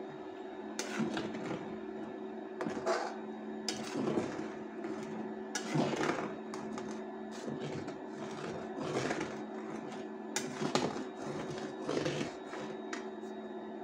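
Slotted spatula scraping and stirring chicken leg pieces in a pan of bubbling tomato, garlic, ginger and green chilli paste, with irregular scrapes and knocks every second or two. A steady hum runs underneath.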